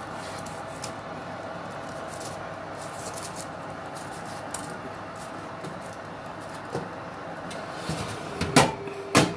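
Faint taps and rustles of baked pastries being turned by hand on a metal baking tray over a steady hum, then, near the end, two loud metallic clanks with a brief ringing tone as the tray is gripped and moved on the oven rack.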